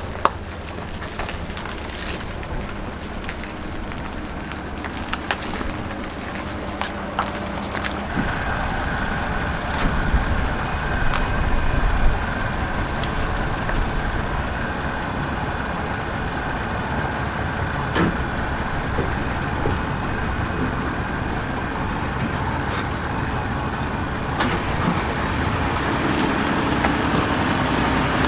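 Pickup truck engine running at low speed while it backs a boat trailer down a concrete ramp into the water. Near the end a second, lower steady engine note comes in.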